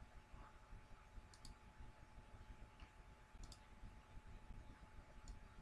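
Faint computer mouse clicks, three quick double clicks about two seconds apart, over a faint steady hum.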